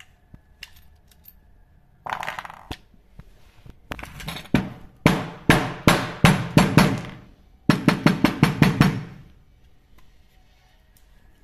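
A series of sharp knocks, a few a second at first and then a quicker run near the end, as the angle grinder's stator winding is knocked loose from its plastic motor housing. A short scrape comes about two seconds in.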